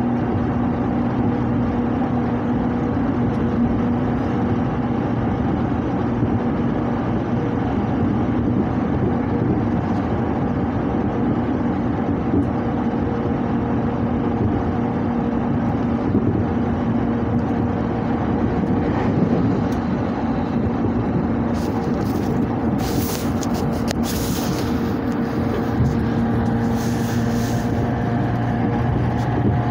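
Electric commuter train running at speed, heard from inside the carriage: a steady rumble of wheels on the rails with a low, even motor hum. About two-thirds of the way through, several seconds of sharper, hissier noise rise over the rumble.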